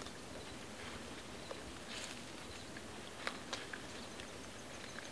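Young buck feeding close by: scattered soft clicks, crunches and rustles as it tears and chews leafy plants and steps through dry grass. A few sharper clicks come about two and three and a half seconds in.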